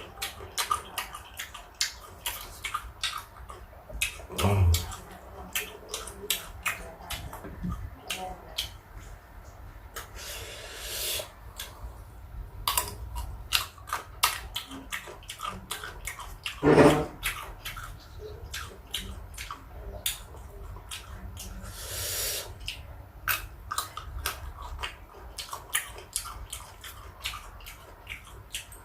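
Close-up eating sounds of a person chewing and crunching sour fruit: a dense run of wet clicks and crunches, with louder knocks about four and a half seconds in and again about seventeen seconds in.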